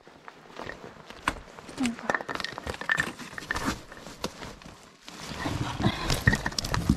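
A hiker's irregular footsteps and shoe scrapes on the trail during a steep climb, with a few short breathy voice sounds close to the microphone.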